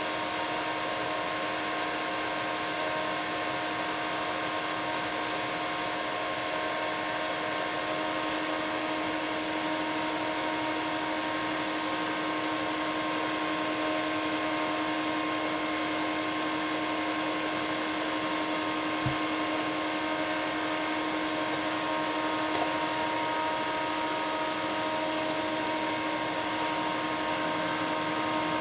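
Homemade induction heater running under load with a steel can of heating water on its coil: a steady hum with several fixed pitches over an even hiss. A single soft low knock about two-thirds of the way through.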